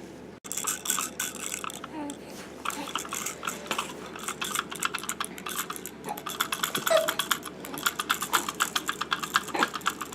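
Plastic beads rattling inside an Oball Rattle & Roll toy car as it is shaken and handled, a quick, uneven run of small clicks.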